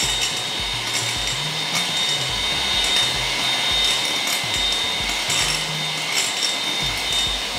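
Electric hand mixer running steadily, whipping egg whites toward soft peaks, with a steady high whine from the motor.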